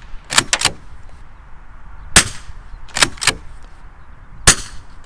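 Moderated .22 Long Rifle Blaser R8 rimfire conversion fired twice, about two and a half seconds apart: each shot is a short sharp crack with a brief tail. Between shots the straight-pull bolt clacks back and forward to chamber the next round, once just after the start and again about three seconds in.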